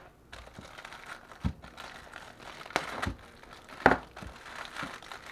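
Crinkling and rustling of the clear plastic wrapper on a frozen French bread pizza as it is being unwrapped. A few sharp knocks come through it, the loudest about four seconds in.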